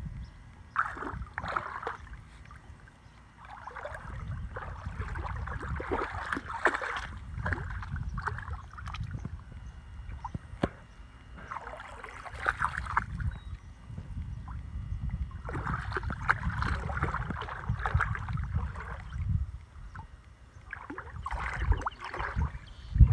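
Shallow muddy water sloshing and splashing in irregular spells as a dog wades through it, over a steady low rumble.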